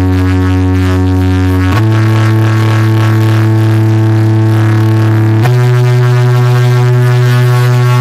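A large stack of DJ loudspeaker boxes playing a loud, deep, held synth tone for a sound check. The note jumps up in pitch twice, about two seconds in and again a little past halfway.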